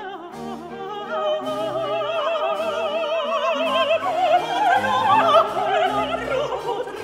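Operatic singing in Italian: a high classical voice holds long notes with wide vibrato, climbing higher about four seconds in, over an orchestral accompaniment.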